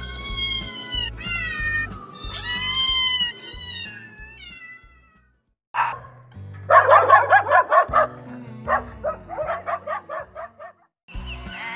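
A cat meowing several times in quick succession. After a short break, dogs bark in a rapid run of sharp barks that thins out into single barks. Background music plays throughout.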